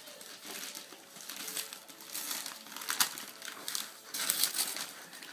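Gift wrapping paper being torn and crumpled as a present is unwrapped: irregular rustling and crinkling, with a sharp rip about three seconds in and busier tearing near the end.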